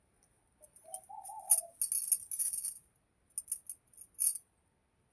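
Light jingling in irregular short clusters, with a brief warbling tone about a second in.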